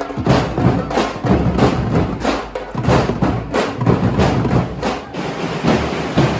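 Live music led by percussion: sharp, regular hits about two to three times a second over a steady low bass.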